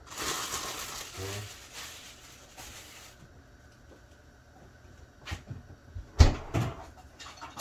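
Kitchen sounds: an even hiss for about three seconds that cuts off suddenly, then a few sharp knocks and clatters near the end.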